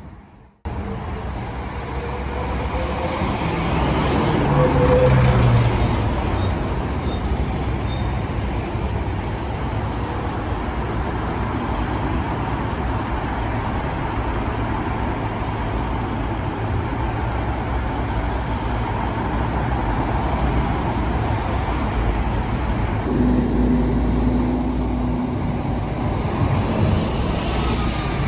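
Road traffic on a city street: a steady din of car and bus engines and tyres passing, after a brief gap just after the start.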